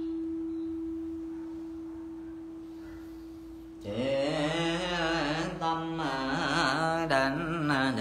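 A temple bowl bell's single tone ringing on and slowly fading. About four seconds in, voices begin chanting on long held notes, reciting a Buddha's name.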